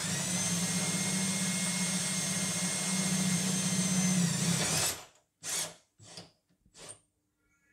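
Cordless drill running steadily as it drills a hole through the sheet-metal body panel, with a deep socket on the bit as a depth stop; the motor stops about five seconds in. Three brief knocks follow.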